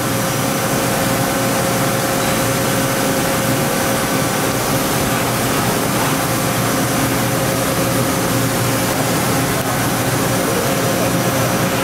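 A 2006 OKK VP600 five-axis vertical machining center running: a steady, even machine hum with one held tone that does not change.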